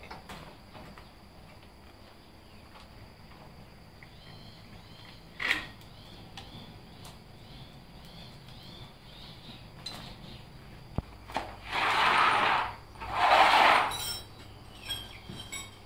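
Hand tools and metal motorcycle parts being handled: a single click about five seconds in, then two loud bursts of rattling and scraping near the end.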